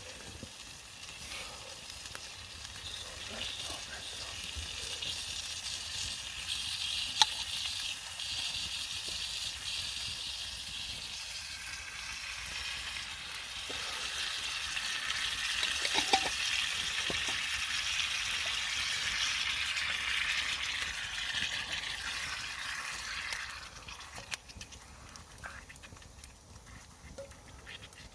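Food sizzling in a frying pan over a campfire, a steady hiss that swells and then dies down near the end, with a couple of sharp spits from the fat.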